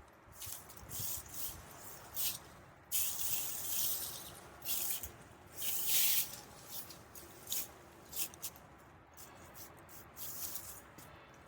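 Digging in garden soil: a dozen or so irregular scraping, hissing strokes of a tool cutting through and shifting loose dirt, the loudest about six seconds in.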